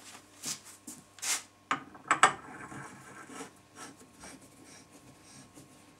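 A steel pipe fitting being screwed by hand onto pipe threads wrapped in plumber's hemp and paste: short scraping, rubbing sounds, the loudest about two seconds in, growing sparser after about three and a half seconds.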